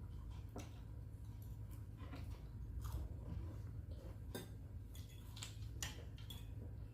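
A person chewing and crunching food close to the microphone, with scattered sharp mouth clicks over a steady low hum.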